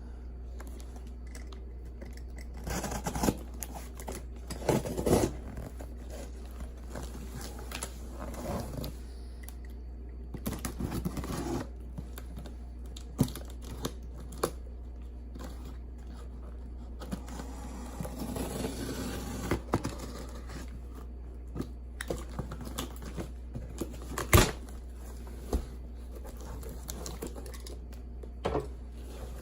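A mail package being opened by hand: tape and cardboard tearing and packing material crinkling, with scattered knocks and clicks. The loudest is a single sharp knock about two-thirds of the way through, and a steady low hum sits underneath.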